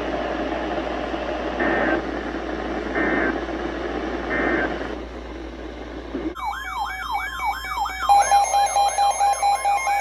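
Emergency Alert System end-of-message: three short data-burst chirps about a second apart over a steady radio hiss, closing the severe thunderstorm warning. About six seconds in, a loud electronic alert tone starts, a warble of quick rising sweeps about three a second, joined near the end by a steady tone.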